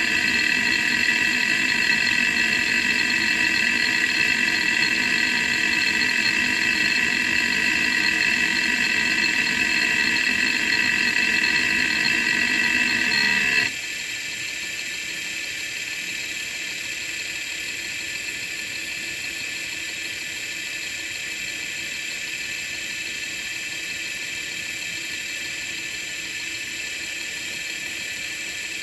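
Opened Quantum ProDrive LPS 105S hard drive running with its lid off: a steady high whine made of several tones. About halfway through, it drops suddenly to a noticeably quieter, thinner whine that holds steady.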